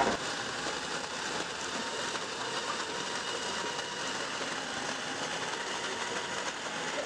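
Espresso coffee grinder running, a steady grinding whir as ground coffee drops into the portafilter.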